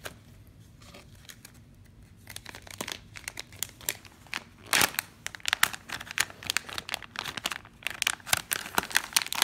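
Clear plastic soft-bait lure bag crinkling and crackling as hands pull it open. It is quiet for the first two seconds, then scattered crackles build to dense crinkling through the second half, with one loud crackle about halfway in.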